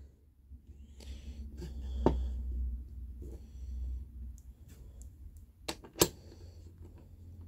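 Metal tool handling: a socket and extension from a socket wrench are fitted onto a threaded insert. There are a few sharp clicks, the loudest about six seconds in, over a low rumble during the first half.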